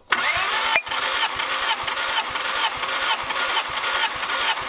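Starter motor cranking a Honda B16A2 four-cylinder engine for a compression test, with the ignition and fuel injectors disconnected and the throttle held to the floor, so it turns over without firing. A steady cranking whir with an even beat of compression strokes cuts in suddenly at the start.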